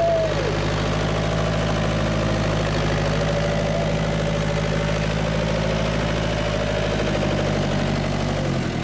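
Vehicle engine idling steadily, its pitch dropping slightly near the end.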